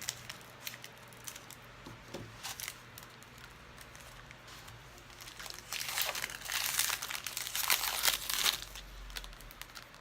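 Trading-card pack's foil wrapper being torn open and crinkled, with light rustles and clicks at first and the loudest crinkling from about six to eight and a half seconds in.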